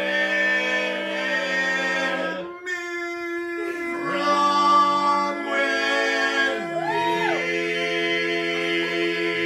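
Male barbershop singers singing a cappella in close harmony, holding long chords. There is a brief break about two and a half seconds in, and about seven seconds in a high voice slides up and back down over a sustained final chord.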